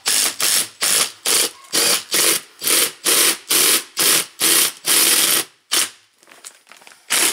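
Makita cordless impact driver run in quick trigger pulses, about two or three a second, rattling as its bit bores into the wall. The pulses stop about five and a half seconds in, with two more brief bursts after that.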